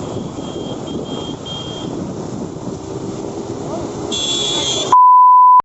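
Motorcycle riding noise with wind buffeting the microphone, and a high beeping about twice a second in the first two seconds. About five seconds in, a loud steady test-tone-like beep cuts in for under a second, then the sound cuts out abruptly.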